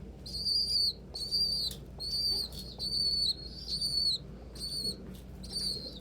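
Young pigeon (squeaker) peeping: a steady series of thin, high-pitched piping notes, a little more than one a second, with a few short flutters or clicks among them over a low steady hum.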